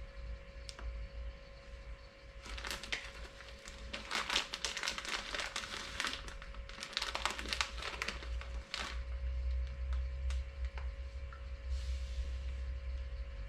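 Packaging crinkling as it is handled, in two spells of dense crackling, the second ending about two-thirds of the way in, over a steady low hum.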